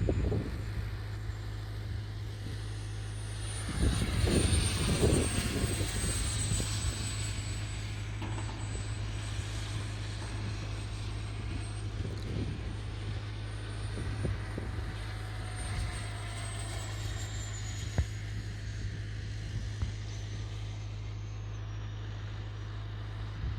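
Miniature jet turbine of an RC F-35B scale model in flight, a steady high-pitched whine over a rushing jet noise. It swells louder as the model passes about four seconds in, and the whine drops slightly in pitch twice later on as the throttle eases.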